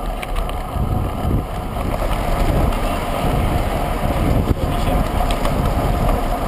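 Wind buffeting the microphone of an action camera on a moving road bike: a loud, steady low rumble of rushing air that cuts off abruptly at the end.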